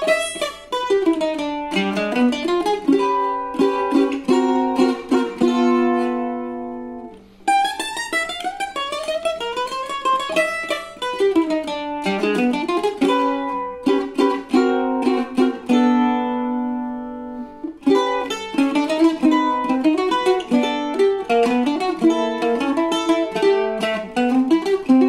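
Solo bandolim, the Brazilian eight-string mandolin, playing a melody: phrases of quick plucked notes alternating with long ringing held notes. There is a brief break about seven seconds in, and a held note dies away before the playing picks up again near eighteen seconds.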